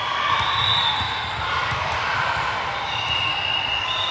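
Volleyball gym sound: repeated thuds of balls bouncing on the hardwood court floor, with short high squeals and voices in the background.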